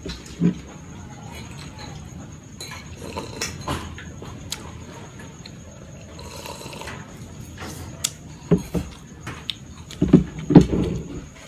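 Drinking iced cola from a glass, with soft sips and small clicks. Near the end comes a cluster of sharp knocks and clinks, the loudest sounds here, as the glass is set down on the table and a metal fork goes into a ceramic plate of pasta.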